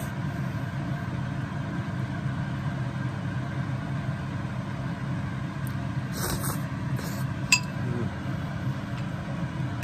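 A metal spoon clinks once against a dish about three quarters of the way through, with a short ring, over a steady low hum. There are a few soft sounds of eating just before it.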